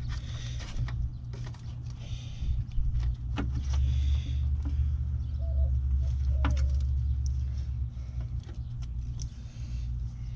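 A low rumble that swells through the middle and fades again, with a few sharp clicks and rustles of wiring and plastic connectors being handled.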